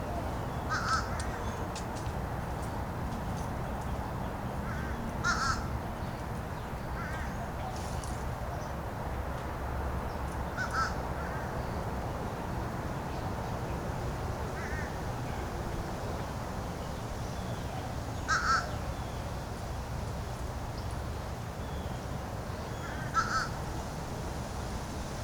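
Crow cawing, about seven single caws a few seconds apart, over a steady low background rumble.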